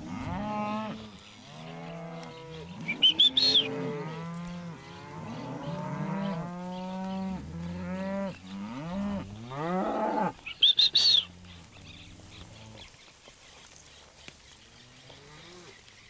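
Herd of beef cows and their young calves lowing, many overlapping moos, some deep and some higher and rising, thinning out after about twelve seconds. Twice, about three and eleven seconds in, a short burst of loud high-pitched sound cuts over the herd.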